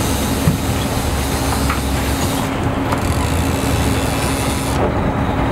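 Boat engine running steadily with a low hum, under a constant rush of wind and water.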